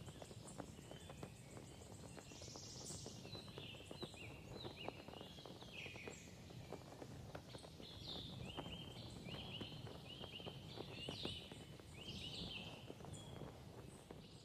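Faint outdoor ambience: small songbirds singing in quick series of short chirping notes, over a low rumble with scattered light knocks.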